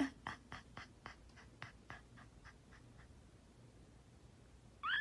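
Hanging strands of beads and charms clicking and clacking as a cat bats at them with its paw: a quick, uneven run of light clicks, about three or four a second, over the first few seconds. A brief high chirp near the end.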